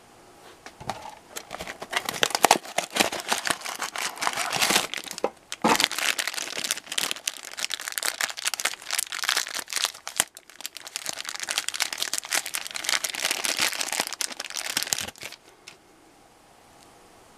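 Black plastic blind-bag wrapper crinkling as it is crumpled and pulled open by hand, in three long spells with short breaks, stopping a couple of seconds before the end.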